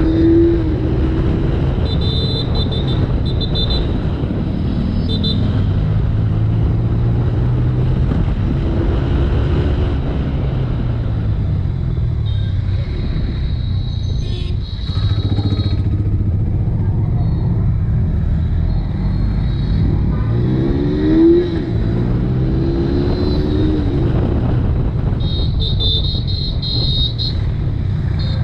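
Honda X-Blade's single-cylinder engine running under way, its pitch rising and falling several times as the throttle is opened and eased off, over a steady rush of wind and road noise.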